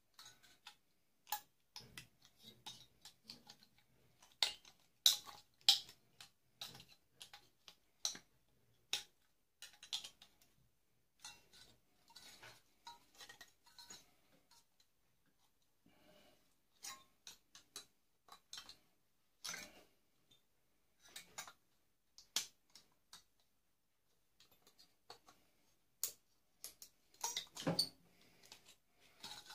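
Pliers or snips clicking and scraping on a microwave magnetron as they cut and pry at it: many irregular sharp metallic clicks, with a short lull about two-thirds of the way through.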